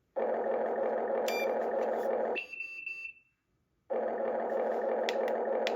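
Electronic sound module of an RC construction machine playing two long buzzing blasts, the first about two seconds long and the second about two and a half, with a short high beep in the gap between them and a few sharp clicks.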